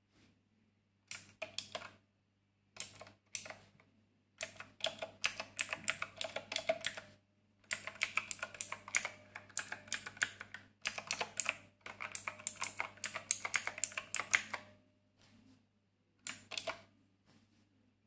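Redragon Ida one-handed mechanical keyboard with clicky Outemu Blue switches being typed on: bursts of rapid, sharp key clicks, the longest runs lasting a few seconds, separated by short pauses.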